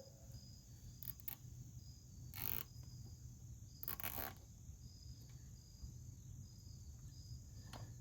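Crickets chirping steadily, with a few short rasps and clicks, about a second, two and a half and four seconds in, from plastic zip ties being handled and pulled tight to fasten a side-discharge chute to a push-mower deck.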